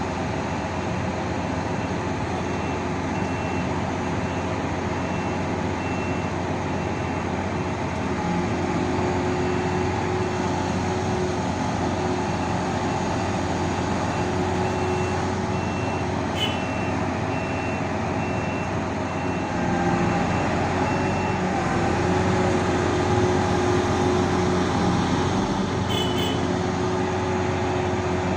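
Heavy diesel vehicle or machine running steadily, with an electronic alarm beeping at an even pace for much of the time.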